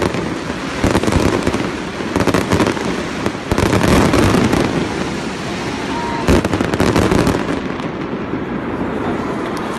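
Stage pyrotechnics crackling and popping rapidly over crowd noise, with a few louder bangs about one, four and six seconds in.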